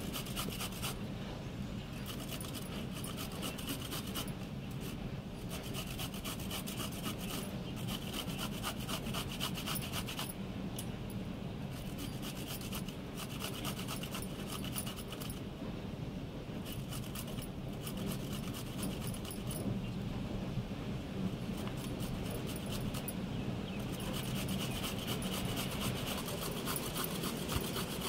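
Fresh coconut being grated on a flat metal hand grater: quick repeated rasping strokes of coconut meat scraping across the grater's teeth, in runs broken by brief pauses.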